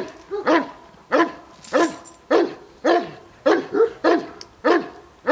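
Dog barking repeatedly at a steady pace, nearly two barks a second, each bark rising and then falling in pitch.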